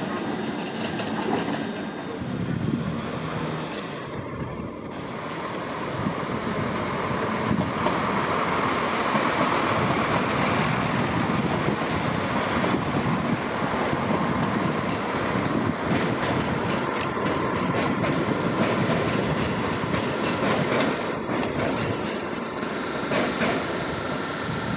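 Greater Anglia multiple-unit passenger train pulling out of the station and running away along the track, with a steady rumble and wheels clacking over the rail joints.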